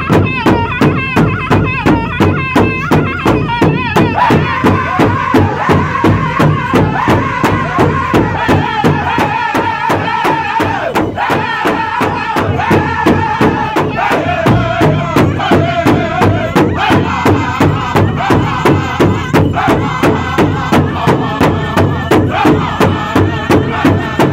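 A powwow drum group singing together in high, strained voices over a large hide powwow drum struck in unison by several drummers with padded sticks, a steady beat of about two strokes a second.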